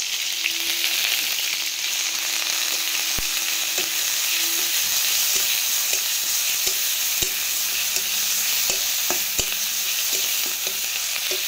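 Onion paste sizzling as it fries in hot oil in a kadai, with a spatula scraping and tapping the pan again and again as it is stirred.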